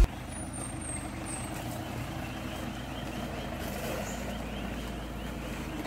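Mahindra Thar 4x4's engine running steadily as the vehicle crawls slowly over a rocky dirt trail.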